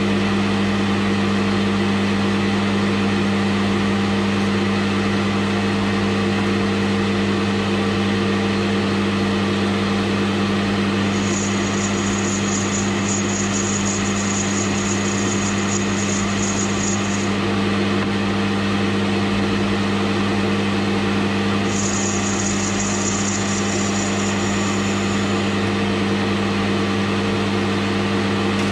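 Geared-head metal lathe running steadily with a brass bush spinning in the chuck, a constant mechanical drone. Twice, for several seconds each, the hand-held tool on the spinning brass adds a high-pitched hiss, the first from about 11 seconds in and the second a little later.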